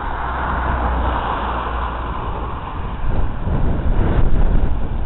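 Wind buffeting the camera microphone: a loud, uneven rumbling rush that grows heavier about three seconds in.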